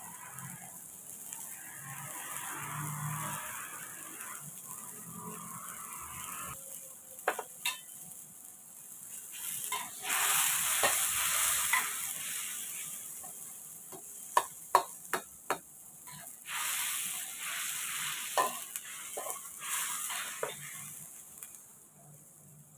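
Garlic and onion sizzling in hot oil in a wok, with a metal spatula clicking and scraping against the pan several times, in a run just after the middle. The sizzle swells into a louder hiss about ten seconds in and again later, as liquid goes into the hot wok.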